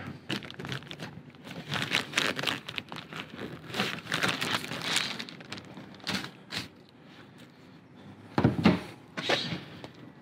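Clear plastic zip-top bag crinkling and rustling in gloved hands as a small part is sealed inside, with many quick crackly clicks. It goes quieter, then a short louder burst of rustling and knocks comes shortly before the end.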